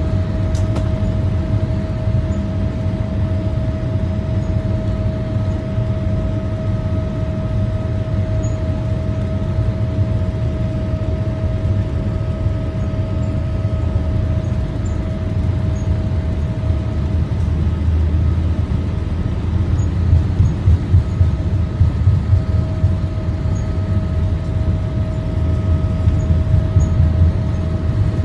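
Inside the cabin of a taxiing Boeing 787: a steady low rumble from its GEnx-1B engines at low thrust, with a steady whine on top. In the second half the rumble turns uneven, with louder bumps from the wheels rolling over the taxiway.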